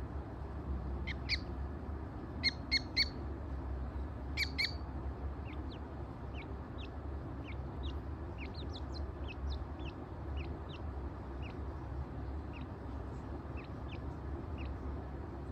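Partridge chicks peeping: short high chirps in small clusters of two or three during the first five seconds, then a scattered run of softer, quick peeps, over a steady low hum.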